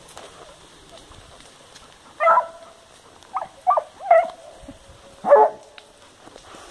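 Hunting hound giving short, yelping barks, about five of them spread over three seconds, starting about two seconds in.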